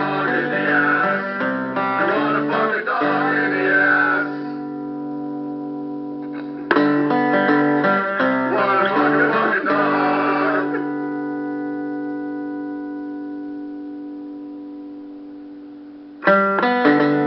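Strummed guitar playing chords in a song recording. Twice a burst of strumming ends on a chord left to ring and slowly fade, and the strumming starts again about a second before the end.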